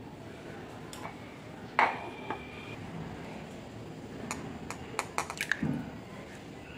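A glass bowl is struck once about two seconds in and rings briefly. Near the end, an egg is cracked with a cluster of sharp taps and its contents drop into the empty glass bowl.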